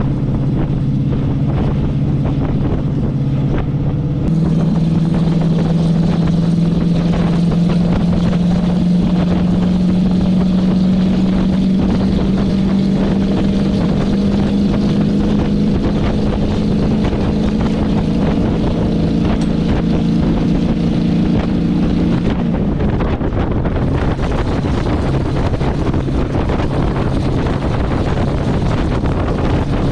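Chevy 350 small-block V8 of a 1980 K20 pickup pulling under load while towing a loaded equipment trailer. The engine note steps up a few seconds in and climbs slowly as the truck gains speed, then sinks under a steady rush of wind noise for the last several seconds.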